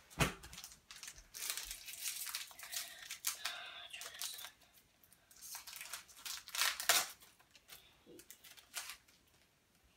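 Foil Pokémon booster pack wrapper being torn open and crinkled by hand, in two spells of rustling and tearing, the second the louder.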